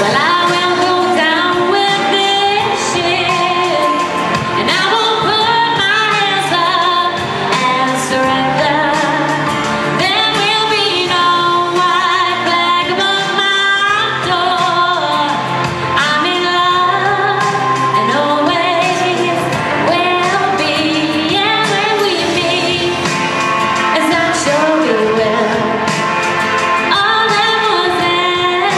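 A woman singing a pop song into a handheld microphone, amplified, over a steady instrumental accompaniment.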